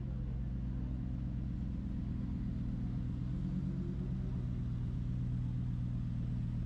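Street traffic: a steady low engine hum, with a faint rising tone about three seconds in.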